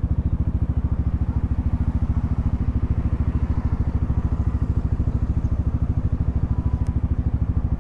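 Yamaha XMAX 300 scooter's single-cylinder engine running steadily at cruising speed, an even low drone that holds the same pitch throughout.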